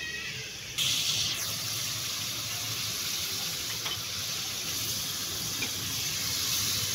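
Chicken pieces cooking in their juices in a karahi over a gas flame, giving a steady sizzling hiss that starts abruptly about a second in.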